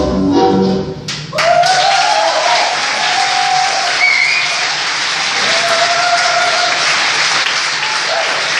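Tango music ends about a second in, and the audience breaks into loud applause, with a few voices cheering over the clapping.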